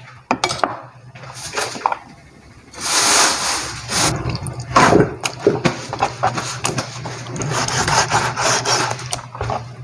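Kitchen knife cutting on a plastic cutting board: a few sharp clicks at first, a louder rushing scrape about three seconds in, then repeated sawing strokes as the blade slices through raw chicken thigh meat.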